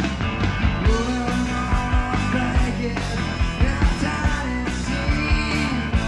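Grunge rock band playing a song live in a rough soundcheck recording: distorted electric guitar over bass and regular drum hits.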